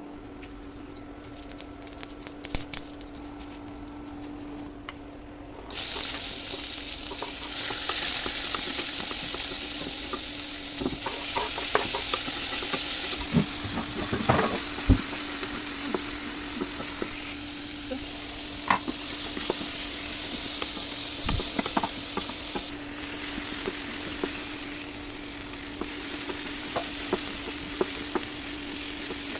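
Food frying in hot oil in a pan. A few small clicks and knocks, then about six seconds in a loud sizzle starts suddenly as food goes into the pan, and it carries on with scattered clinks and scrapes of a utensil.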